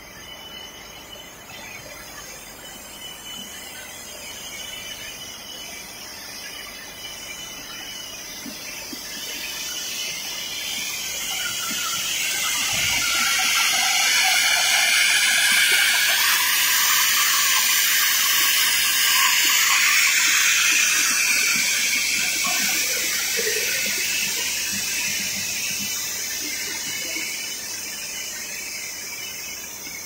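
Machinery of a rubber profile extrusion and vulcanizing line: a hiss with squealing, wavering high tones that swells to its loudest in the middle and then fades again.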